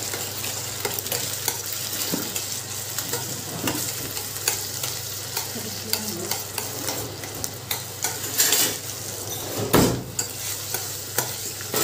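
Grated white gourd frying in ghee in a stainless steel kadai while a metal spoon stirs and scrapes it, with many small clicks of spoon on pan. One louder knock about ten seconds in. The gourd is being roasted to drive out its water before it browns.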